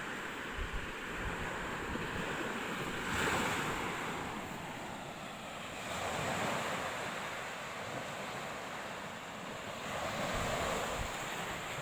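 Ocean surf washing onto the shore, with waves breaking three times, about every three to four seconds. Wind rumbles on the microphone.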